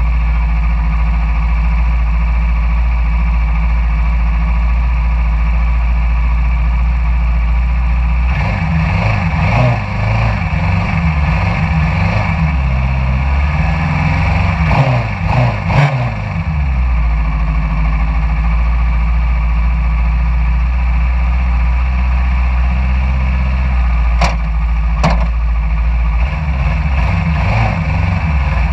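Engine of a caged racing buggy heard from the cockpit, idling steadily, then revved up and down several times through the middle stretch before settling back to idle. Two sharp clicks near the end.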